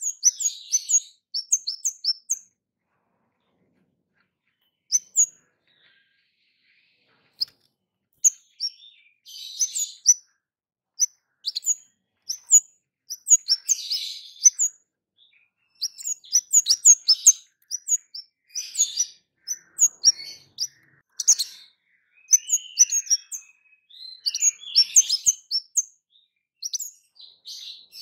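Kemade songbird calling: runs of short, sharp, high 'cit' chirps, several a second, with two pauses of about two seconds near the start.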